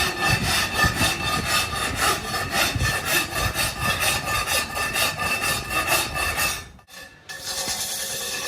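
Metal of a wheel rim being abraded in rapid, even rasping strokes, as in smoothing down repair work; the sound breaks off briefly about seven seconds in, then carries on.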